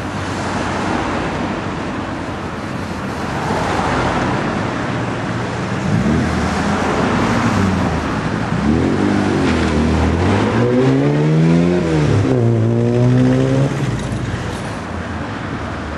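Classic cars driving slowly past. About halfway through, one car's engine revs up and drops back several times as it pulls away through the gears, then settles to a steadier note before fading.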